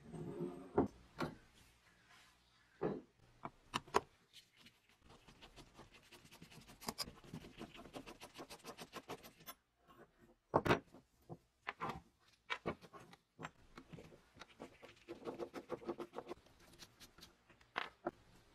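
Rusty steel parts of a vintage tape gun (frame plates, bracket, spring and nuts) being handled and taken apart by gloved hands on a wooden workbench: a scattered series of metal clicks and knocks, the loudest about ten and a half seconds in, with stretches of rubbing and scraping near the start and again near the end.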